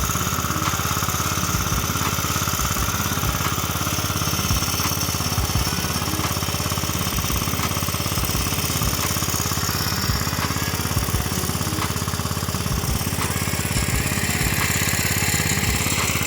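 Irrigation pump set engine running steadily at a constant speed.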